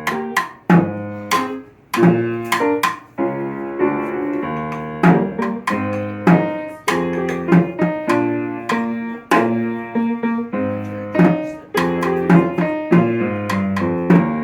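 Band music: sustained chords on pitched instruments, punctuated by frequent sharp percussion hits.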